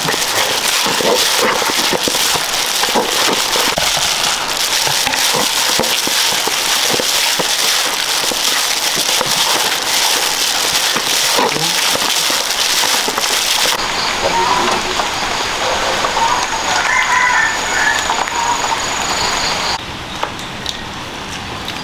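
Hot cooking oil sizzling and spattering with dense crackles, as peeled boiled quail eggs fry in a pan. About fourteen seconds in it gives way to a quieter stretch with a few short chirping calls.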